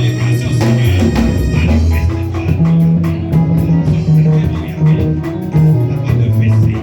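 Instrumental band music with bass guitar and guitar over a drum kit keeping a steady beat.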